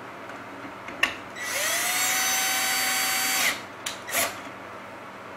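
A cordless drill/driver runs a small screw partway in. After a click, the motor whines for about two seconds, rising in pitch as it spins up, then holds steady and cuts off sharply. Two short knocks follow.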